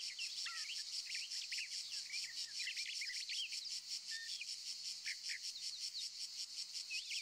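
Birds chirping, with many short, quick calls, over a steady, fast-pulsing high buzz of insects.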